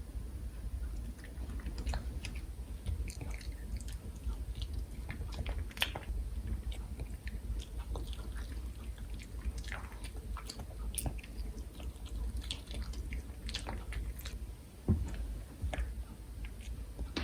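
Pomeranian chewing and biting food, a run of irregular small crunchy clicks, with one louder thump about fifteen seconds in.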